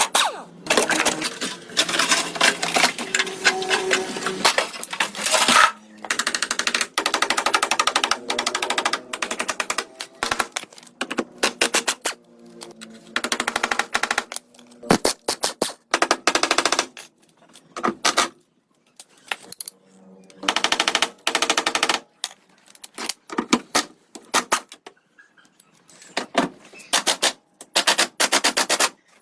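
A machine with a fast rattling rhythm, run in repeated bursts of one to two seconds with short pauses between.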